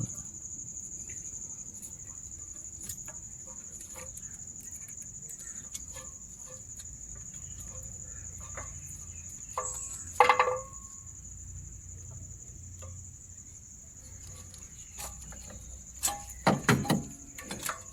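Small clicks and knocks of ignition coils being fitted back onto a three-cylinder engine, with a sharper knock about ten seconds in, over a steady high-pitched tone. A few short pitched calls come near the end.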